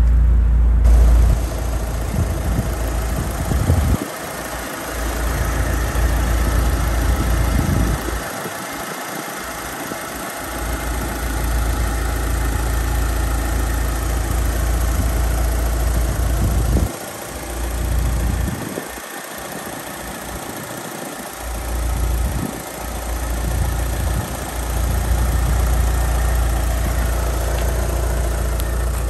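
A Mitsubishi Lancer Evolution VI Tommi Makinen Edition's turbocharged 4G63 2.0-litre four-cylinder idling steadily. Over it is a low, uneven rumble of wind on the microphone that comes and goes.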